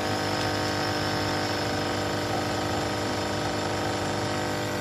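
Single-serve coffee machine's pump humming steadily as it dispenses a caramel cappuccino pod into the cup.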